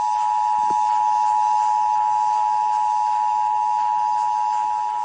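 Emergency Alert System attention signal: two steady tones sounded together in one long, harsh held chord, the alert that a required monthly EAS test is being broadcast.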